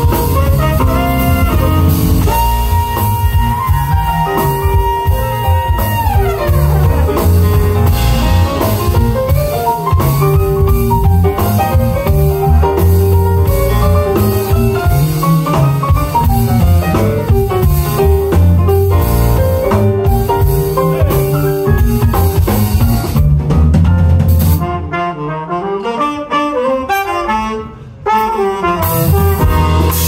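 Live jazz band: trumpet playing the lead over electric bass and drum kit. Near the end the bass and drums drop out for a few seconds, leaving the melodic lines, before the full band comes back in.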